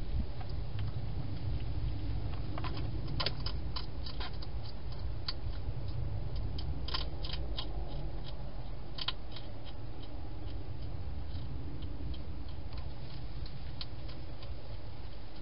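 Wild hedgehog crunching dry food from the bowl: irregular sharp clicks, thickest from a few seconds in until about halfway, then sparse, over a steady low rumble.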